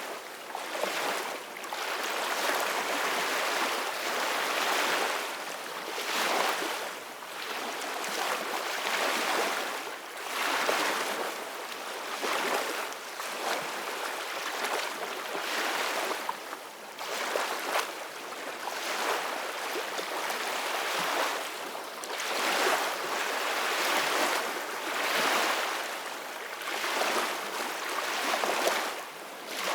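Small ocean waves washing onto a shore, a continuous hiss of surf that swells and eases every two seconds or so.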